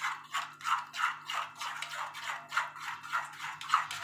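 Steel spoon stirring wet gram-flour batter in a stainless steel bowl: quick, rhythmic wet scraping and clinking against the bowl, about three strokes a second, as water is mixed in.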